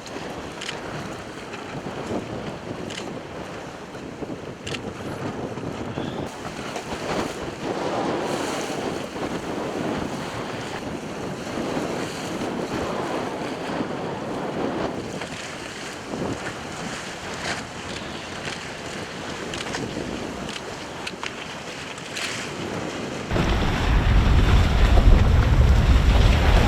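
Sea water splashing and rushing in strong wind, swelling and fading every few seconds. Near the end, wind starts buffeting the microphone with a sudden, louder deep rumble.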